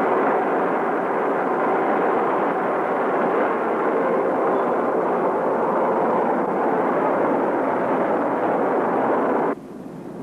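Steady rushing roar of machine-shop machinery, which cuts off suddenly about nine and a half seconds in.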